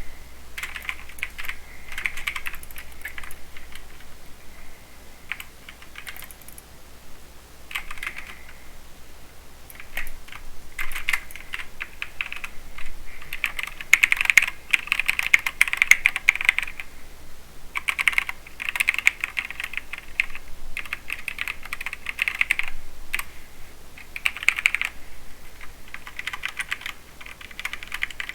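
Mechanical keyboard with Cherry MX Silver linear speed switches being typed on: quick flurries of keystrokes lasting a second or a few seconds, broken by short pauses. The fastest and loudest runs come around the middle.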